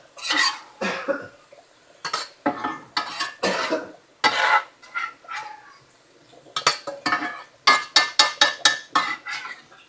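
Metal spoon scraping onions out of a skillet: a run of irregular scrapes and clinks of metal on the pan, coming faster near the end.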